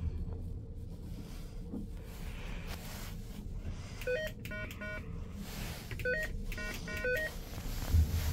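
Traction elevator car riding with a steady low hum. An electronic chime of short, stepped beeps sounds twice, about four and six seconds in, and a low thump comes near the end.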